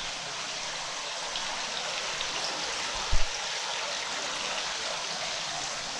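Steady rushing hiss like running water, with one brief low thump about three seconds in.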